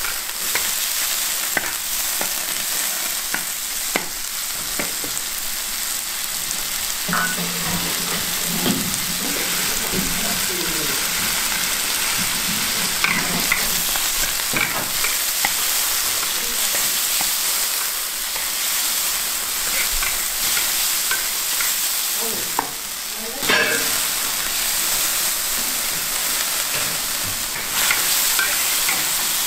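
Cuttlefish sizzling in a hot wok as it is stir-fried, the spatula scraping and knocking against the wok.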